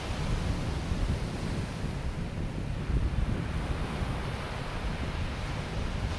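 Ocean surf washing onto a sandy beach, a continuous hiss of waves, with wind buffeting the microphone in a gusty low rumble.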